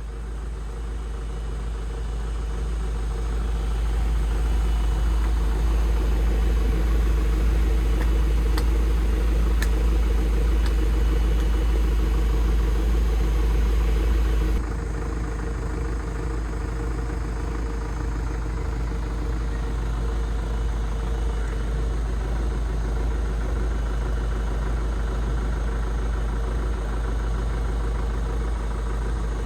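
Hydraulic excavator's diesel engine running steadily. It grows louder over the first few seconds, then drops suddenly to a lower, duller level about halfway through.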